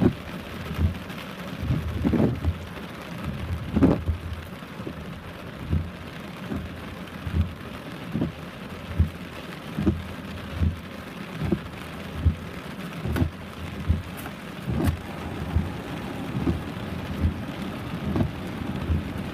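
Heavy rain falling steadily, with a regular low thud close by a little more than once a second.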